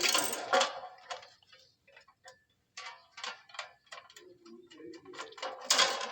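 Small metallic clicks and ticks from screws being fastened on a planer's electrical box with a hand tool, with a louder clatter at the start and again near the end.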